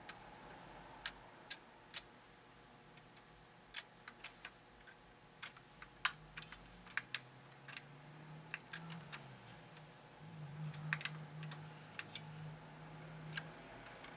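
Irregular small clicks and taps of fingers handling a 1:18 die-cast model car, flipping its pop-up headlights open and shut. A faint low hum runs through the second half.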